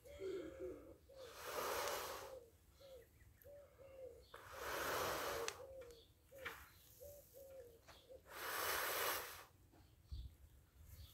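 A person blowing hard into a smouldering tinder bundle to bring a friction-fire ember to flame: three long blows, about three seconds apart. A dove coos repeatedly in the background.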